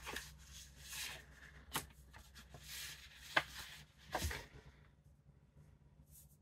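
Cardboard envelope being opened and its contents slid out by hand: rustling and scraping of card and paper in a series of short bursts with a few sharp snaps, dying down about two-thirds of the way through.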